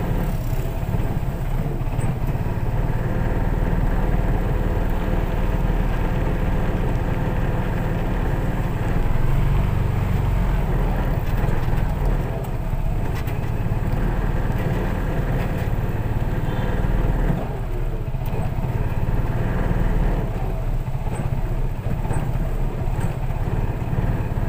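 Steady low rumble of a car being driven, engine and road noise, with small swells in loudness.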